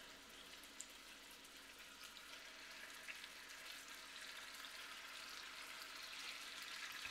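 Beef rouladen sizzling faintly in hot olive oil as they are laid into the pan to sear, the sizzle slowly growing louder as more go in.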